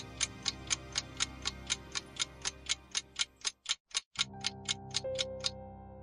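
Countdown timer ticking about four times a second over soft background music; the ticking stops near the end.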